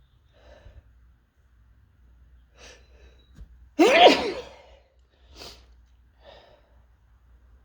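One loud, sudden sneeze about four seconds in, led up to by a few short breaths and followed by two quieter breaths.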